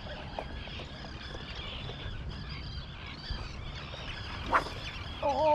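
Many birds calling at once: a steady chatter of short, high calls, over a low outdoor rumble of wind and water. A single sharp click sounds about four and a half seconds in, and a falling call begins near the end.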